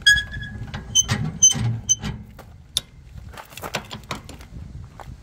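A trailer's coupling head being worked down onto a car tow ball: a sharp metal clack with a brief ring, then three short metallic pings about half a second apart, followed by lighter clicks and rattles as the coupling latches on.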